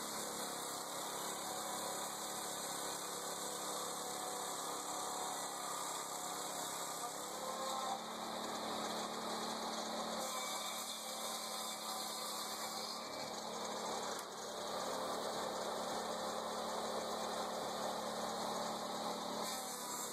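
Steady mechanical hum with a hiss over it, like a machine or engine running. Its tone shifts abruptly a few times.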